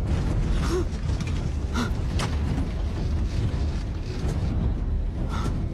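Steady deep rumble of a jet airliner cabin in flight, with irregular creaks and several sharp knocks from the cabin fittings and overhead bins, as in turbulence.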